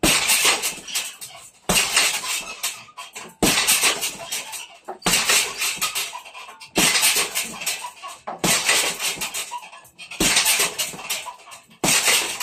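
Punches landing on a hanging heavy bag, each hit followed by the rattle and squeak of the metal chains and hook of its stand. It comes in a regular pattern, a sharp hit about every second and a half to two seconds that trails off in quick jingling.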